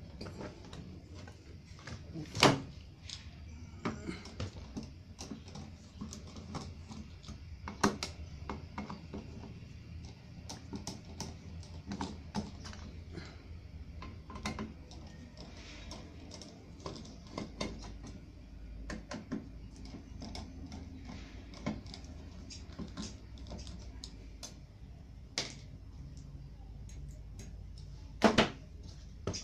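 Scattered clicks, taps and knocks of a computer power supply's steel case and circuit board being handled and worked apart with a screwdriver. The loudest knocks come about two seconds in, near eight seconds, and a quick double one near the end.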